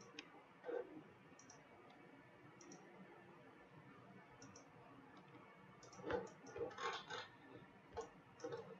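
Faint clicks of a computer mouse: a few single clicks spaced a second or more apart, then a quicker run of clicks about six seconds in.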